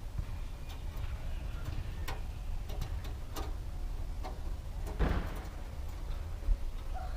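Scattered light clicks and ticks as a wire-sprung bug screen and its springs are worked against an RV vent opening, with a brief scraping rustle about five seconds in, over a low steady rumble.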